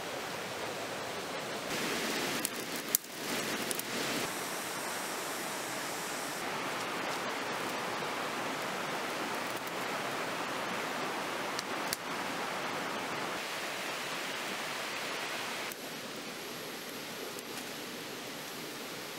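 Steady rushing of a forest stream, with a few sharp cracks and knocks about three seconds in and again near twelve seconds.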